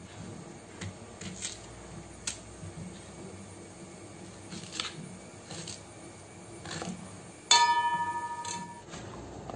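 Kitchen knife cutting soursop into small pieces on a plastic chopping board: scattered light taps of the blade on the board. About three quarters of the way through, a loud metallic ring that dies away over about a second and a half.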